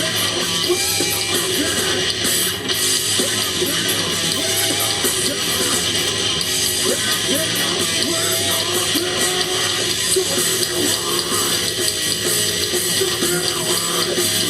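Live rock band playing loud, distorted electric guitars over bass and drums.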